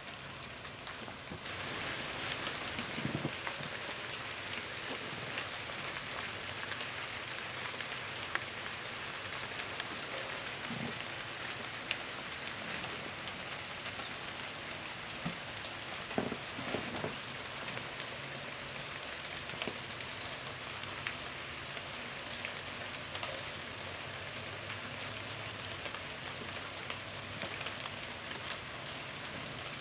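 Steady rain falling, an even hiss with scattered small drip ticks.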